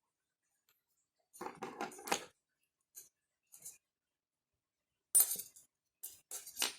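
Metal scissors clicking and snipping through crochet yarn in a few short bursts, one about a second and a half in and more near the end.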